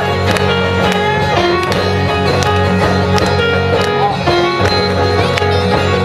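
Live band music: guitars and keyboard holding sustained notes over regular hand-drum hits, with a few sliding notes.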